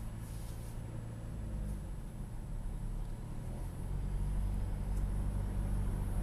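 A car on the move: steady low engine and road rumble that grows a little louder about four seconds in, recorded for an unexplained noise while driving.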